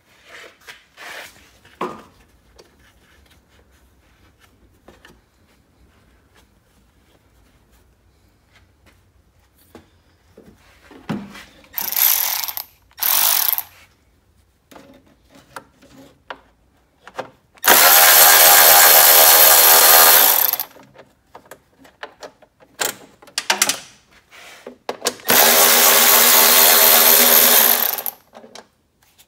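Cordless electric ratchet motor whining in bursts as it runs bolts out of the lawn tractor engine's covers: two short blips, then two runs of about three seconds each, with light clicks and knocks of metal parts between.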